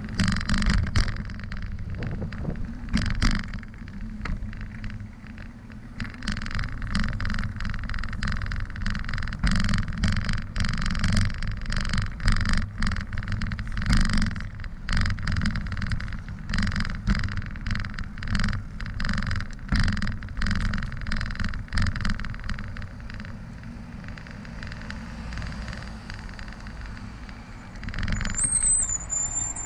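Bicycle rolling over pavement and sidewalk concrete: a steady low rumble of tyres and wind, with a dense run of rattling clicks through most of the stretch as it goes over rough slabs and joints, easing off later. A brief high squeak sounds near the end.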